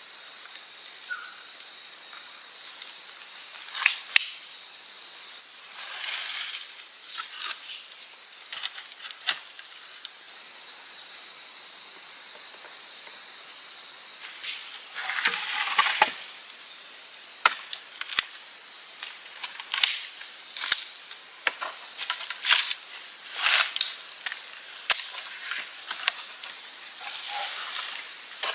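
Branches and sticks being handled, knocked and snapped: irregular sharp cracks and brief rustling bursts of wood, over a faint steady high tone.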